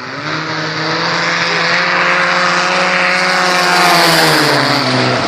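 Racing snowmobiles running flat out past the track fence. The engine note holds a steady pitch as it grows louder to a peak about four seconds in, then drops a little in pitch and fades as they go by.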